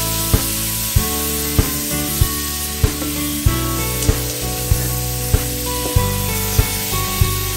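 Meat and aromatics sizzling in hot oil in a stainless steel pot as they are stirred with a wooden spatula, under background music with a steady, even beat.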